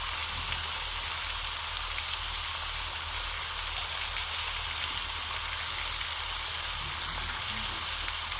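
Thinly sliced ribeye sizzling on a hot electric griddle: a steady frying hiss with a few faint crackles.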